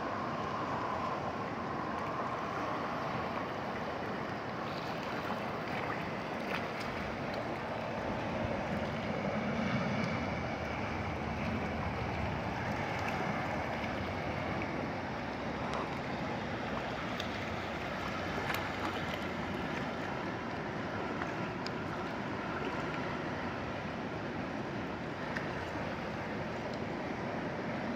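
River current rushing steadily over rocks and shallow riffles.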